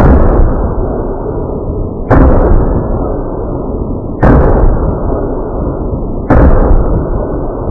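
Four loud gunshots about two seconds apart, each followed by a long rolling boom that slowly dies away.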